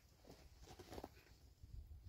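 Near silence, with a few faint soft scuffs or rustles about a second in.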